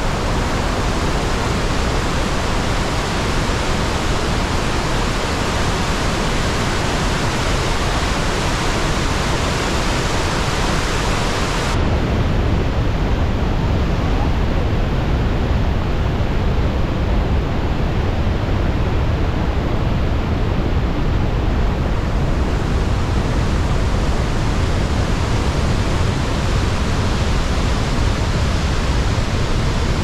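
Steady roar of Iguazu Falls: a flooded brown river rushing over the brink just below the walkway. About twelve seconds in the sound turns duller and deeper.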